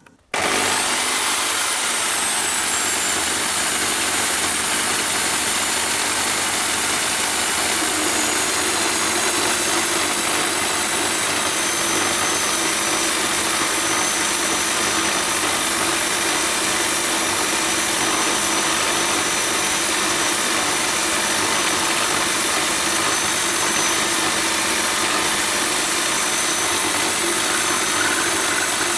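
Small end mill on a lathe milling setup cutting a metal bar, with the steady whine of its drive motor and the rush of the cut. The sound starts abruptly, and the high whine drops a little in pitch over the first few seconds before settling.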